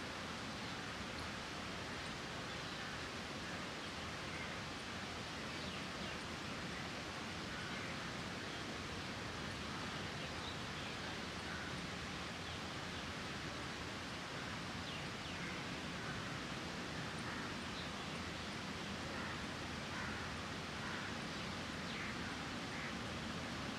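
Steady outdoor background hiss with faint, short high chirps now and then, more of them in the second half.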